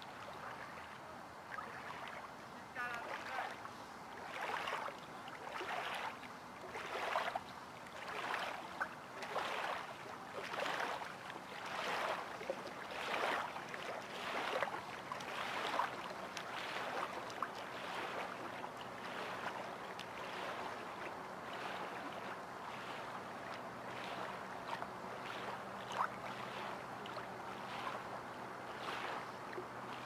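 Small waves lapping against the lake shore, a soft splash-and-wash roughly every second or so. It settles into a steadier, gentler wash about halfway through.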